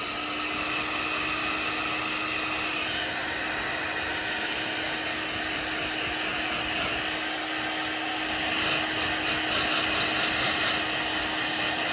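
Heat gun running steadily, a constant hum from its fan motor under a hiss of blown air, a little louder in the second half. It is heating a refrigerator door gasket to soften it so it closes the gap in the seal.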